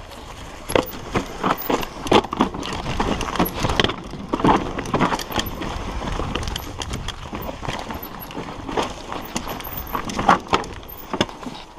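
Mountain bike descending a rocky dirt singletrack: tyres rolling and crunching over dirt and stones, with many irregular knocks and rattles as the bike hits rocks and roots.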